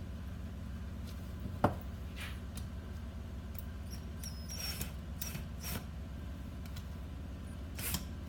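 Small clicks and scrapes of a screwdriver and screw being worked by hand into a 3D-printed plastic hinge, scattered over a steady low hum.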